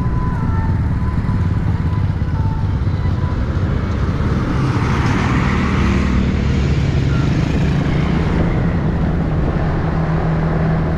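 Motorcycle engine running steadily under way, with wind and road noise. Around the middle a louder rush of traffic noise comes as other motorbikes pass close by at a junction.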